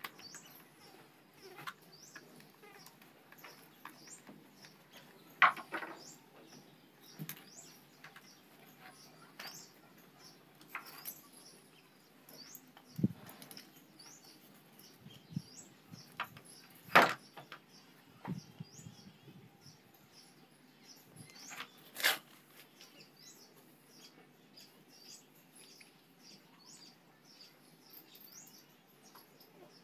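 Small birds chirping repeatedly in the background, with a few sharp clicks and knocks from handling and taking apart the plastic housing of a DeWalt angle grinder, the loudest about 17 seconds in.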